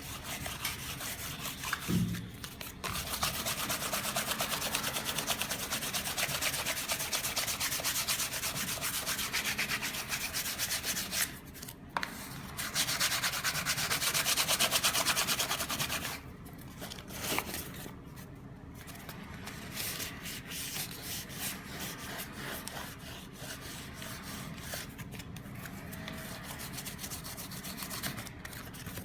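Piece of cardboard rubbed fast back and forth over wax filler in a wooden window frame, burnishing the repair flush. A dense scraping with a few short pauses, loudest about halfway through and softer toward the end.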